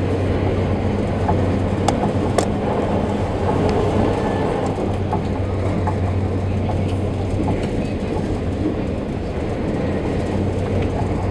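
Steady drone of a passenger ferry's engines and hull under way at sea, heard inside the passenger cabin: a constant low hum over a rush of water noise, with a few faint clicks about two seconds in.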